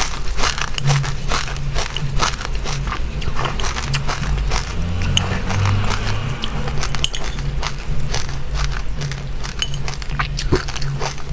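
Close-up crunching and chewing of dry chilli seeds and buckwheat, with many sharp, irregular crunches.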